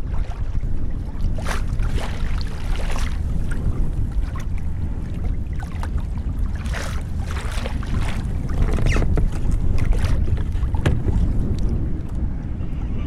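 Wind buffeting the microphone with a steady low rumble, while choppy water slaps and splashes against a kayak hull in irregular bursts.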